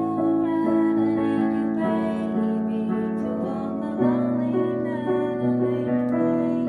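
Piano played in slow, held chords, each chord sounding for a second or more before the next.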